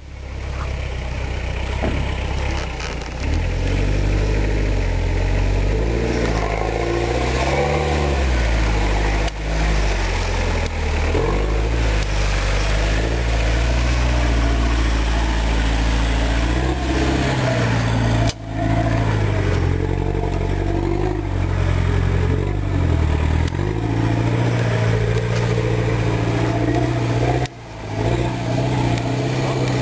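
Toyota Land Cruiser engine revving up and down under load as the truck crawls through deep muddy ditch ruts, its note rising and falling again and again. The sound breaks off briefly a few times.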